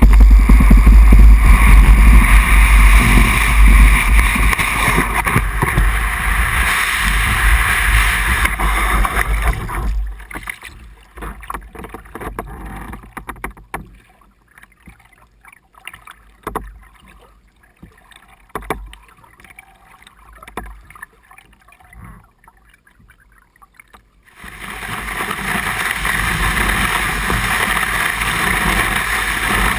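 Fibreglass sea kayak hull sliding over snow, a loud rough scraping rush with a heavy low rumble for about ten seconds. It gives way to quiet paddling on calm water: scattered paddle splashes and drips. A loud steady rushing noise comes back a few seconds before the end.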